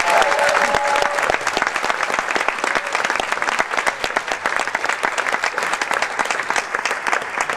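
Large audience applauding: many hands clapping together, easing slightly toward the end.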